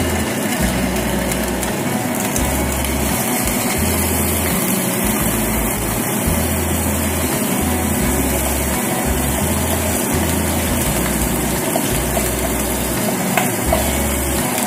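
Milkfish fillets sizzling in hot frying oil in a pan, a steady even hiss.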